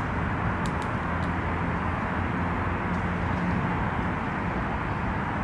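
Steady low rumble of distant road traffic, with a few faint clicks about a second in.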